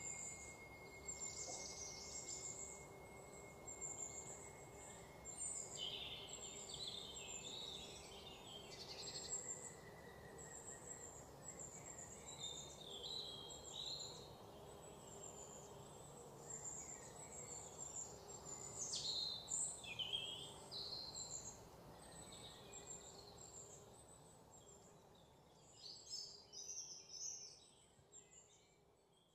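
Birds chirping and calling, many short high chirps throughout, over a low steady hum.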